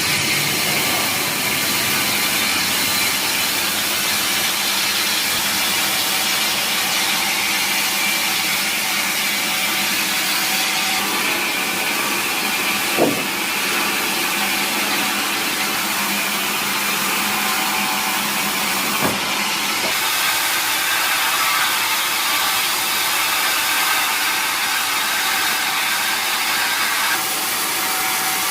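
Sawmill band saw (TB 36) running steadily as it rips a large timber beam lengthwise, a continuous even cutting noise. Two short sharp knocks come in, one a little before halfway and one about two-thirds of the way through.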